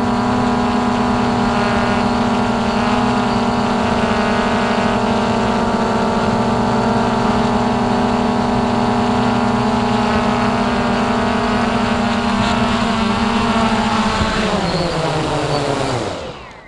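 Hubsan X4 Pro H109S quadcopter's motors and propellers whirring steadily, heard close up through the drone's own onboard camera. Near the end the pitch falls and the sound dies away as the drone sets down in the grass and the motors spin down.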